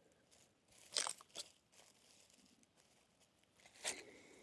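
Faint crunching and tearing of a wild basil plant being pulled up by its roots from forest soil, in a couple of short bursts: one about a second in and another near the end.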